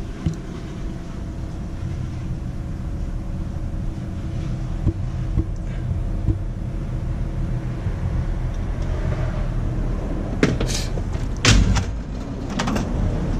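Steady low background rumble with a faint hum. Near the end come several sharp metal clacks and rattles as a tool box drawer of pliers is shut and the next drawer pulled open.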